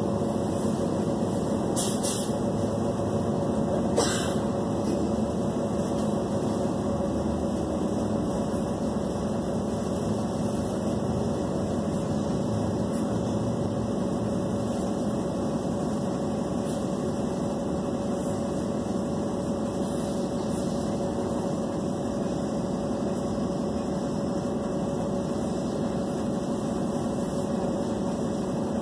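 City bus engine idling while the bus stands still, heard from inside the passenger cabin: a steady drone with a faint steady whine over it. A brief rattle comes about two seconds in, and a single sharp click about four seconds in.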